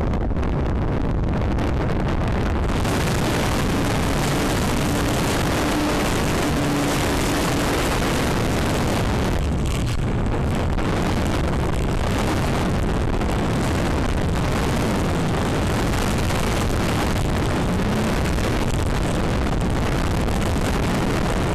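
Airflow rushing over the onboard camera's microphone of a battery-powered RC airplane in flight, mixed with its motor and propeller running. It is a loud, steady rush that gets brighter about three seconds in.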